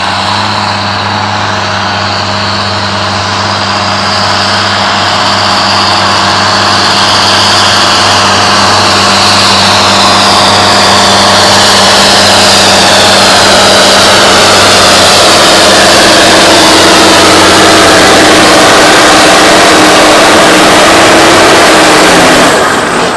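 Fendt 930 Vario tractor's six-cylinder diesel engine working hard under load as it drags a weight-transfer pulling sled, growing louder as it comes near, with a high whine that slowly falls in pitch. Near the end the engine note drops off suddenly as the tractor comes to a stop at the end of its pull.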